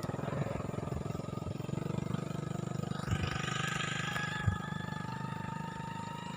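Small petrol engine running steadily, its pitch creeping up slightly in the second half.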